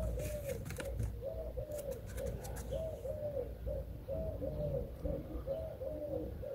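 Doves cooing in short repeated phrases, with a second, lower-pitched cooing joining in after about four seconds. Light rustling ticks are heard in the first couple of seconds.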